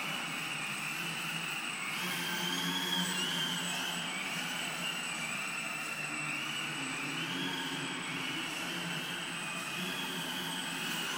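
Crack Yak 55 model plane's small electric motor and propeller whining in flight, the pitch stepping up and down over and over as the throttle is opened and eased.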